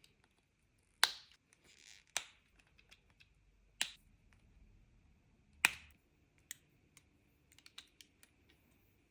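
LEGO plastic pieces snapping and clicking together as they are assembled by hand: four sharp clicks spread over the first six seconds, then a run of lighter taps and clicks.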